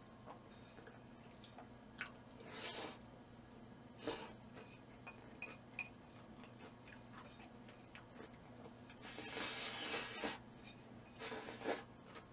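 Quiet eating sounds from a bowl held up to the mouth and eaten from with chopsticks: a few short slurps and chewing, the longest slurp lasting about a second around nine seconds in.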